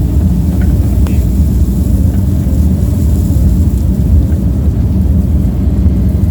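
John Deere 135G excavator's diesel engine running steadily under work, a loud, deep, even drone.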